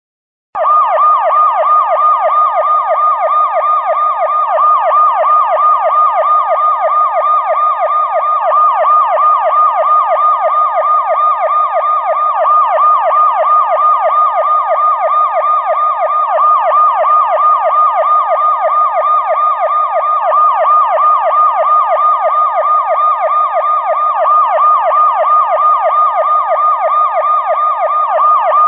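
Police siren sound effect in a fast electronic yelp, its pitch sweeping quickly up and down several times a second without a break. It starts about half a second in.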